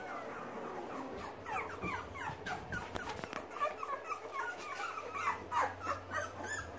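Young Boxer puppies whimpering and squealing: many short, high cries that slide down in pitch, several a second and overlapping, getting louder toward the end.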